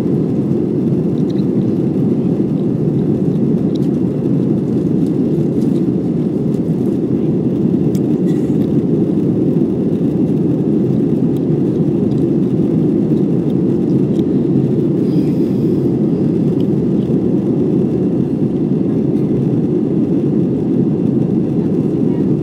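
Jet airliner's engines and airflow heard as a steady, loud cabin rumble.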